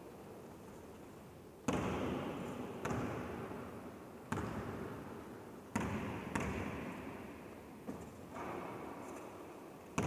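Basketball bouncing hard on a gym floor, about six single bounces at uneven intervals of a second or so, each one echoing and fading out in a large empty sports hall.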